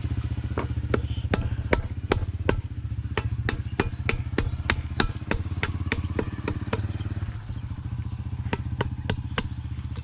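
Rapid sharp knocks, about three a second, of a wooden-handled tool striking a piece of bamboo. They thin out and stop about seven seconds in, with a few more near the end. A steady low mechanical drone runs underneath.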